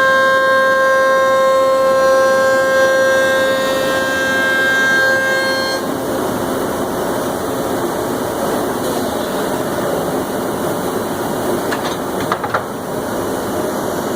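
CNC router milling plywood: a loud, steady whine over a rushing noise. About six seconds in the whine stops abruptly and the rushing noise carries on, with a few sharp clicks near the end.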